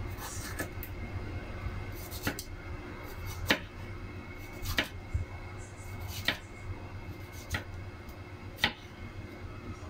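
Ceramic knife slicing through a tomato into wedges, the blade knocking on a wooden cutting board with each cut: about seven sharp taps, roughly one every second and a quarter.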